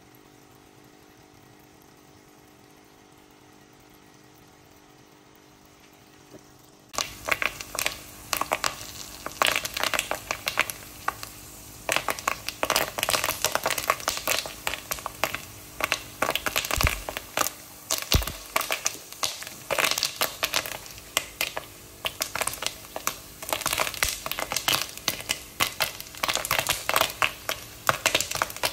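A faint steady hum, then from about seven seconds in, popcorn kernels popping in a pot of hot chocolate-coated oil: rapid, irregular sharp pops, several a second, over a constant sizzle.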